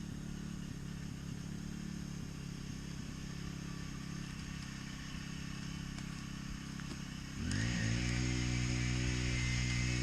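Capstan winch's engine running steadily at low speed, then about three quarters of the way in it revs up to a higher, louder steady speed as the winch is set to pull a rope-tied bundle of branches.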